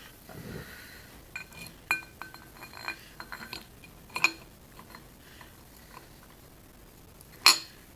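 Steel cam timing gear and bolts clinking as they are set in place by hand: a scattered string of light metallic clinks and taps with a short ringing tone, the loudest single clink near the end.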